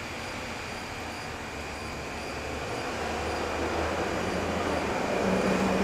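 SEPTA Silverliner IV electric commuter train approaching, its rumble growing steadily louder, with a low steady hum joining near the end.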